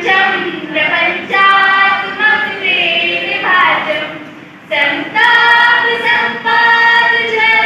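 A group of female voices singing together without instruments, in long held phrases with a short break about four and a half seconds in.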